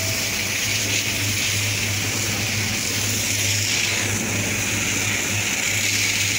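High-pressure water jet from a drain-jetting hose spraying hard onto wet paving, a steady hiss over the low, even drone of the jetting machine's engine running.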